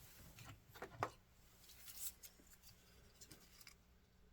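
Near silence with a few faint clicks and rubs about a second in and again around two seconds: small HO-scale model train cars being handled.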